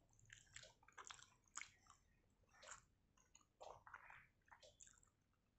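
Faint close-up chewing and wet mouth smacks of a person eating water-soaked rice (panta bhat) and fried pakora by hand, as irregular soft clicks and squelches, with fingers breaking the food on the plate.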